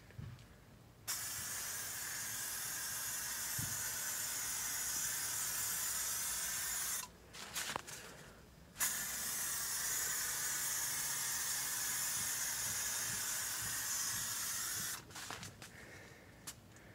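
Aerosol can of SprayMax 2K two-part clear coat hissing steadily as it sprays, in two long passes of about six seconds each. There is a short pause with a few faint clicks between them.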